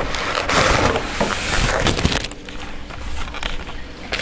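Cardboard box and packaging rustling and knocking as they are handled and opened, with scattered clicks, louder in the first two seconds.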